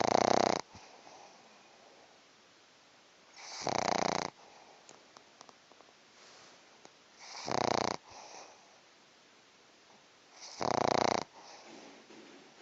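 Sleeping pug snoring: four loud snores about three and a half seconds apart, with softer breathing between.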